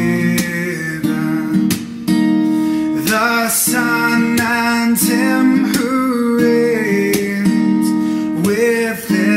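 Acoustic guitar strumming chords about once a second under a sung hymn melody.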